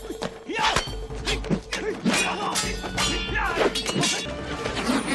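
Kung fu film fight soundtrack: a fast run of punch and kick hit effects and crashes over the film's music score.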